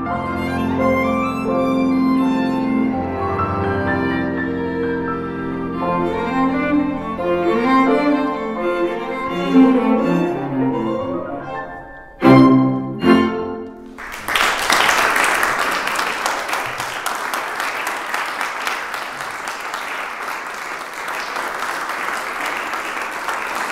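Piano quintet of piano, two violins, viola and cello playing a fast scherzo, which closes with two short, loud chords about twelve seconds in. Audience applause follows and carries on steadily after the final chord.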